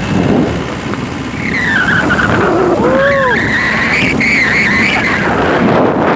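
Wind rushing over a phone's microphone and the rumble of a truck while riding in its open cargo bed. A high wavering squeal runs over it from about a second and a half in until near the end, with two short rising-and-falling tones about halfway through.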